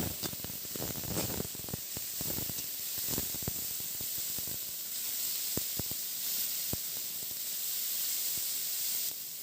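Crab pieces sizzling in hot oil in a kadai over a low flame, a steady hiss with scattered small crackles and pops.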